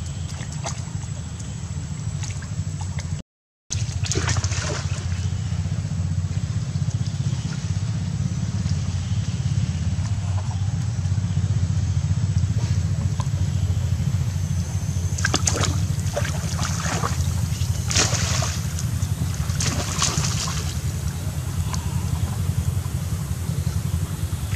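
Shallow stream water sloshing and splashing as a monkey moves in it, with a few louder splashes in the second half, over a steady low rumble.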